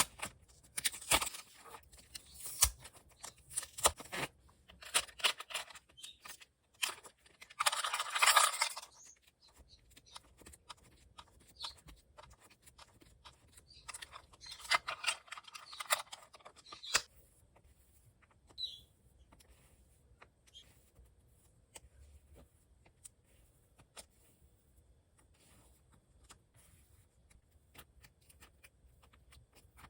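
An album and its wrapping being handled and opened: crinkling, tearing and scraping of paper and wrapping with small taps and clicks, in short bursts. The loudest bursts come about eight seconds in and again around fifteen seconds in, then only light handling ticks.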